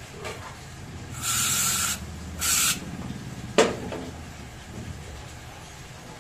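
Aerosol can of carb cleaner sprayed in two short hissing bursts, about a second in and again a moment later, to flush a motorcycle intake manifold. A single sharp knock follows a little past halfway.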